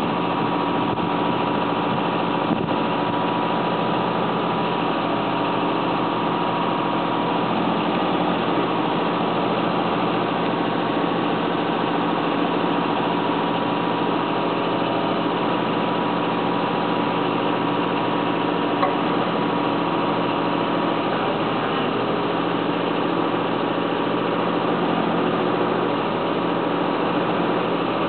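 Excavator engine running steadily at constant speed while powering a hydraulically driven concrete mixer. A thin steady whine sits over it for the first several seconds, then fades.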